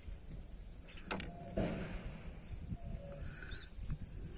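A small bird chirping: a quick run of high, sliding notes begins about three seconds in. Under it is faint rustling of hands handling fishing line and a plastic bottle cap, with one small click about a second in.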